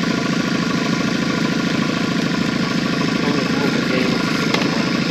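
Boat's outboard motor running steadily, with a fast, even firing pulse.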